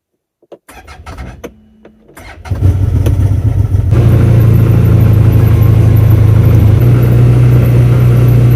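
A vehicle engine is started and then runs loudly and steadily, its note shifting slightly a few seconds after it catches.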